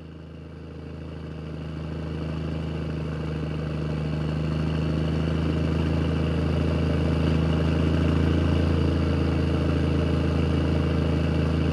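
A vehicle engine running at a steady pace, fading in over the first several seconds and then holding level.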